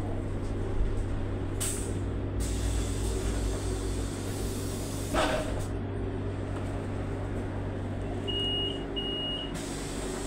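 Steady electric hum inside a Solaris Urbino 18 IV Electric articulated bus standing at a stop. Near the end come two short high beeps, the warning that the doors are about to close.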